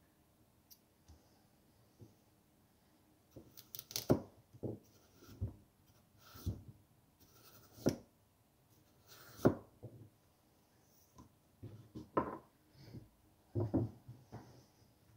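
Kitchen knife cutting through a raw carrot on a plastic cutting board: about a dozen irregular chopping knocks, each stroke crunching through the carrot and striking the board, starting about three seconds in.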